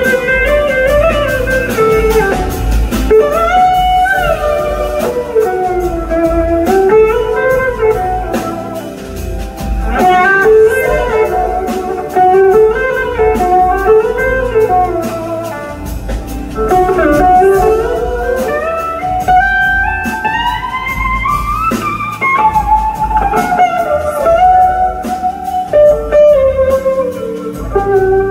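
Live blues-rock band playing an instrumental passage: an electric slide guitar on a red SG-style guitar carries a melody that slides up and down, with a long rising glide about two-thirds of the way through, over drums and a second electric guitar.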